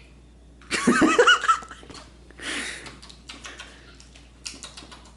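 Stifled giggling and snickering: a high-pitched giggle about a second in, then breathy snickers and short faint bursts.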